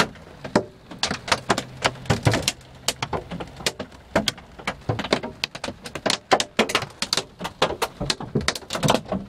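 Hailstones pelting down, a dense, irregular clatter of sharp knocks, several a second, some much louder than others.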